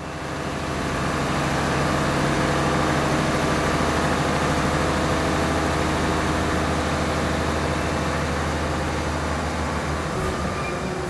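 Diesel locomotive engine running steadily: a deep, even drone that fades in over the first couple of seconds.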